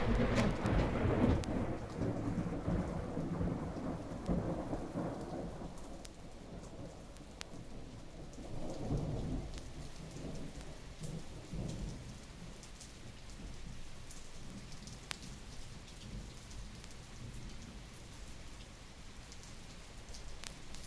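Thunder rumbling and dying away over steady rain, with a second, softer roll of thunder about nine seconds in. The sound is a 1961 thunderstorm recording played from a vinyl LP, with a few record clicks.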